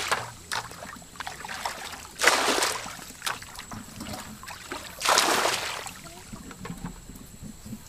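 Water splashing and sloshing as hands scoop through shallow water while fishing by hand, in two splashes about three seconds apart. Between them there is fainter trickling and dripping.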